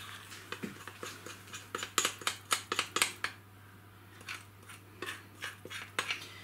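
A spoon clinking and scraping against a glass bowl as thick powdered-sugar icing is stirred and then scraped out, in quick irregular clicks that ease off briefly midway.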